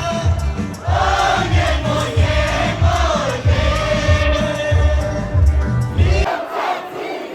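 Rock band playing, a singer holding long notes over a steady bass-drum beat. The music stops abruptly about six seconds in and the crowd starts shouting.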